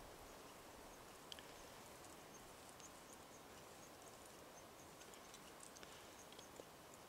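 Near silence with a few faint, short clicks from a thin wire snare being twisted onto a wooden squirrel pole.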